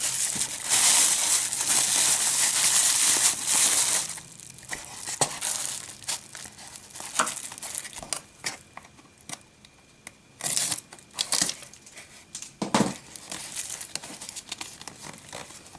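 Packing material crinkling and rustling as it is handled and pressed into a shipping box. It is loud and continuous for the first four seconds, then gives way to quieter scattered handling clicks and short rustles.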